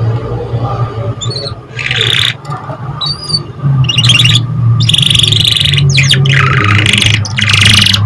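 Domestic canary singing: a couple of short whistled notes, then fast rolling trills that get denser and louder from about halfway through, over a steady low hum.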